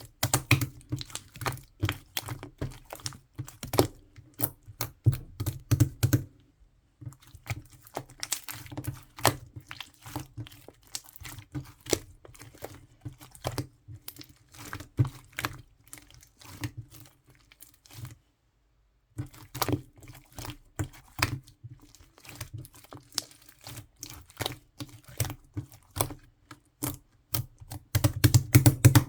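Melted, runny slime being squished and worked by hand, giving a dense run of sticky clicks and crackling pops. It stops dead twice for about half a second to a second.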